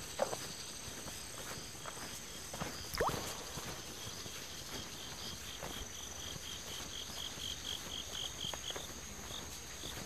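Forest insects droning steadily at a high pitch. Through the middle comes a run of short, evenly spaced high notes, about three a second. Two sharp thumps fall near the start and about three seconds in.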